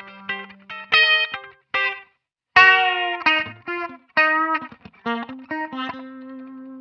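Electric guitar played through the Neural DSP Mesa Boogie Mark IIC+ amp-modeling plugin on a chorus funk preset: short, choppy chord stabs and single notes with brief gaps between them, ending on a held low note.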